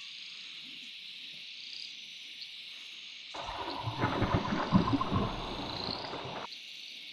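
Steady drone of a cicada chorus. From about three seconds in, a bass splashes and thrashes at the water's surface on the surface lure for about three seconds, then stops.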